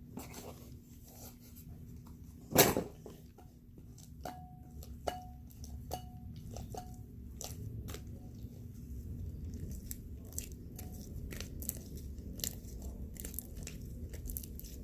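Slime being kneaded and squished by hand: a run of small wet, sticky clicks and pops, with one louder pop about two and a half seconds in.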